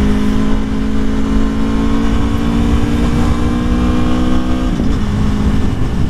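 2021 Aprilia Tuono motorcycle engine pulling under acceleration, its pitch rising slowly and then dropping abruptly about three quarters of the way through at an upshift. Wind rushes over the helmet-mounted camera throughout.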